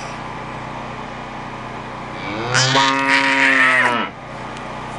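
A cow mooing: one long moo starting about halfway through, dropping in pitch as it ends.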